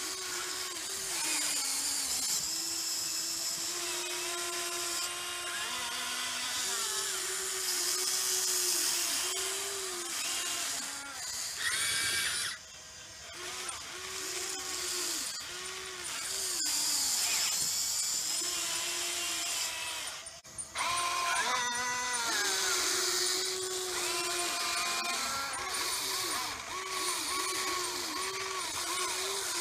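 Electric motors of a Huina 580 RC excavator whining as the boom, arm and bucket dig. The pitch dips and rises in short repeated arcs as each function starts and stops, with a couple of brief pauses.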